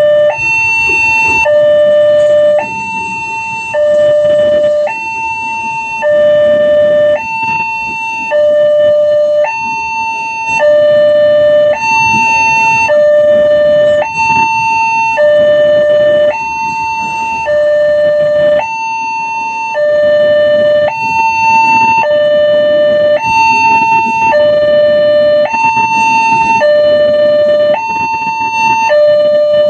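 Railway level-crossing warning siren alternating steadily between a higher and a lower tone, each held about a second, the high tone the louder. It is the crossing alarm that sounds while the gate barrier is down for an approaching train.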